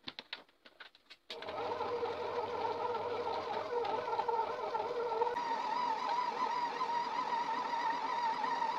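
A metal spoon scrapes and clicks against a steel mixing bowl, then about a second in a stand mixer's motor switches on and runs with a steady whine that wavers slightly as its dough hook kneads the dough.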